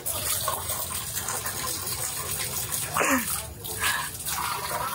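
Shore water running from a hose through a two-stage Riva drinking-water filter and pouring out of the outlet in a steady stream, splashing as it lands.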